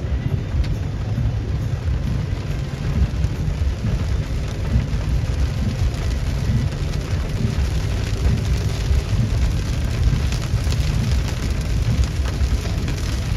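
Heavy rain from a severe thunderstorm pouring steadily, with a deep, continuous low rumble beneath the patter.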